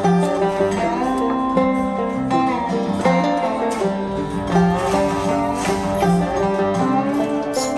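Background music led by plucked guitar, with a steady rhythm.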